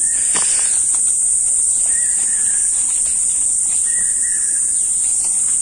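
A steady, high-pitched drone of insects, with two faint short calls about two and four seconds in.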